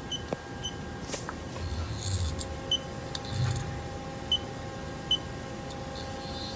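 Steady running hum of a Haas SL-20 CNC lathe, with several short high electronic beeps from the control panel and a couple of brief low rumbles as the tool is handle-jogged toward the part.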